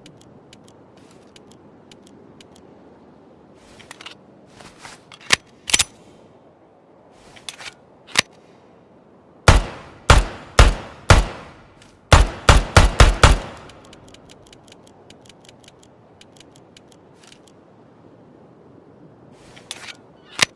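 M1911A1 .45 ACP pistol firing: a single shot, then four shots about half a second apart, then a rapid string of about six, with fainter clicks in the gaps between shots.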